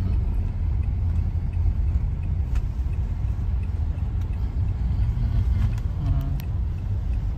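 Steady low rumble of a car's engine and road noise heard from inside the cabin as it inches forward in slow traffic.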